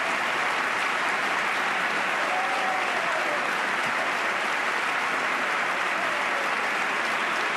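Sustained applause from a large crowd of lawmakers in a chamber: dense, even clapping that holds steady throughout.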